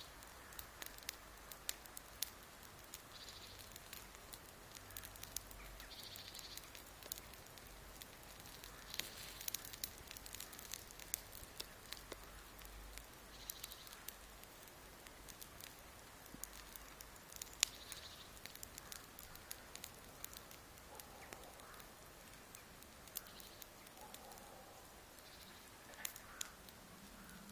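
Woodpecker tapping at the bark of a pear tree while foraging: irregular single sharp knocks, now and then in quick little clusters, not a drumming roll.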